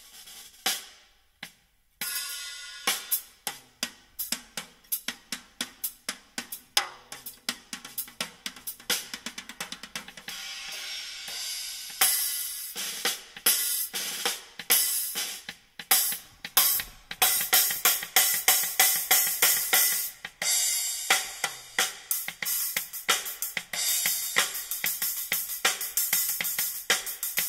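A drum-heavy song played through a car audio system's tweeters alone, so it comes through thin and bright, with little low end. Hi-hat, cymbal and snare hits sound as quick, sharp strikes in a steady rhythm. The music comes up about two seconds in.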